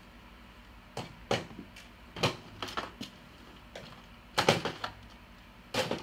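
Irregular knocks and rubbing sounds of a camera being handled and moved about, with the loudest cluster a little past the middle.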